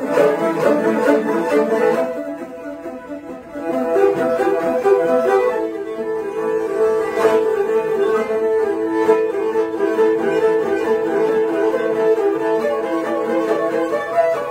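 Two morin khuur (Mongolian horsehead fiddles) bowed together in a duet. The playing drops quieter about two seconds in, comes back up near four seconds, and then settles into long held notes with a repeating figure above them.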